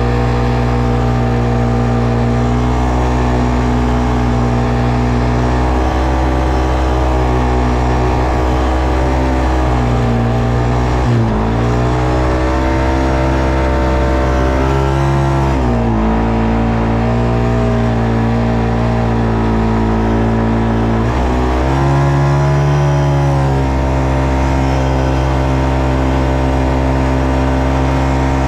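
ATV engine running steadily under way. Its pitch dips briefly and climbs back three times, as the throttle eases and opens again.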